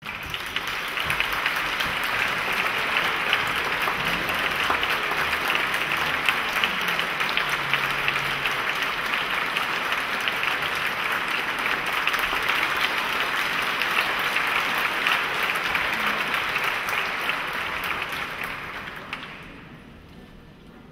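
Concert audience applauding with steady, dense clapping, which dies away over the last couple of seconds.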